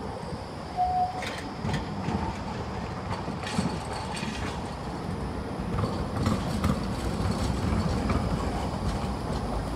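Tram running on rails: a steady low rumble with irregular clicks of the wheels over the track.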